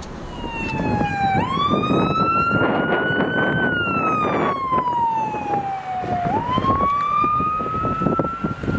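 Fire truck siren wailing: the tone jumps up about a second and a half in, climbs slowly, falls for a few seconds, then rises again. Under it, the rush of the truck driving past on the wet road.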